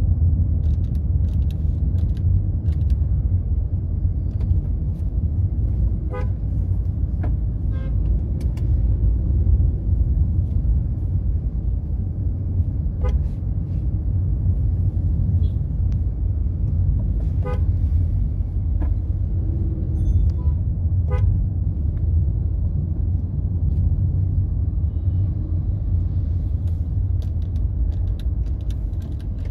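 Road traffic with several short horn toots from passing vehicles over a steady low rumble.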